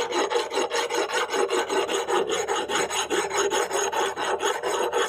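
Steel hand file rasping back and forth across the rusty steel socket rim of an old hoe head, filing off rust in quick, even strokes, several a second.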